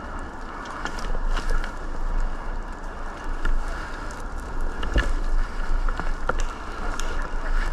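Wind rumbling on the microphone outdoors, with scattered sharp clicks and snaps; the loudest comes about five seconds in.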